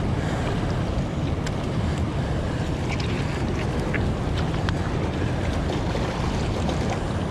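Steady rush of fast-flowing river water, with wind rumbling on the microphone.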